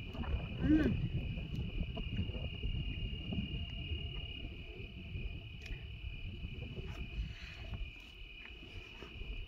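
Crickets trilling steadily in a continuous high chirping, with wind rumbling on the microphone underneath and a few faint knocks.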